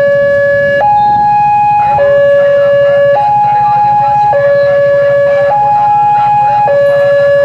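Railway level-crossing warning siren sounding a loud two-tone alternation, a low tone of about 560 Hz and a high tone of about 840 Hz, switching a little more than once a second. It is the crossing's warning that a train is approaching.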